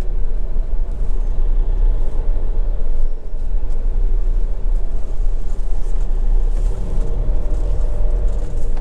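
Swift Kon-Tiki motorhome's diesel engine running and its tyres rolling on tarmac as it drives slowly, heard from inside the cab as a steady low rumble.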